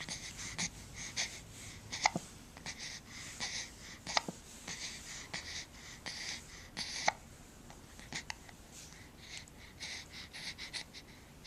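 A person hiccuping: sharp, short hiccups every two to three seconds, with soft breathy sounds in between.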